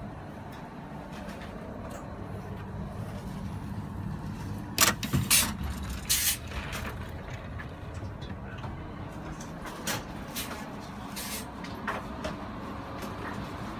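Steady low hum inside a Heathrow Express train carriage, with a short cluster of loud knocks and clatter about five seconds in and a few lighter clicks later on.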